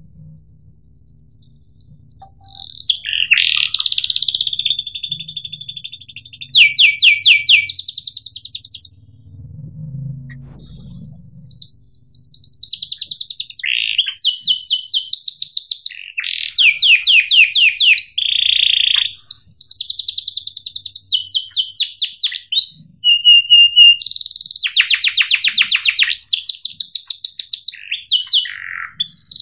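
Domestic canary singing a long, high-pitched song of chirps and rolling trills of rapidly repeated notes, with a short break about nine seconds in.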